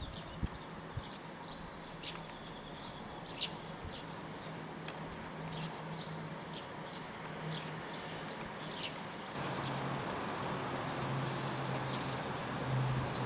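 Domestic cats growling at each other in a territorial threat standoff: a low, drawn-out growl with brief breaks, dropping in pitch and growing louder about nine seconds in.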